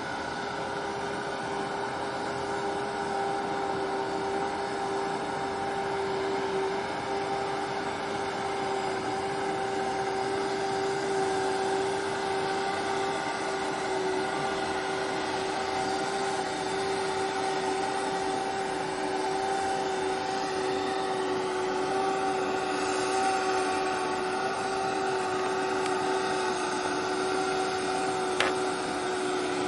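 Steady machinery hum with a constant mid-pitched tone from an oil products tanker under way close by, growing slightly louder as it passes; a single short click near the end.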